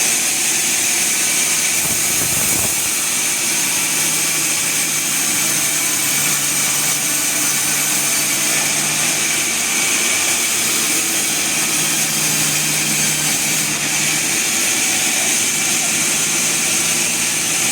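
Sawmill machinery running steadily, with a constant high hiss and a faint low hum.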